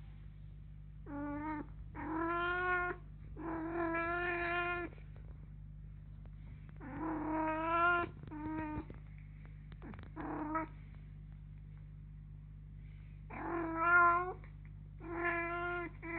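A kitten gives about eight drawn-out, complaining meows, some over a second long, while an adult cat bites at its neck. There is a pause of a couple of seconds in the middle, and a steady low hum runs underneath.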